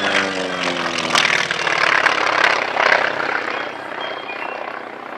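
Aircraft flying past at an airshow: the engine's pitch falls as it goes by, loudest a second or two in, then fading away.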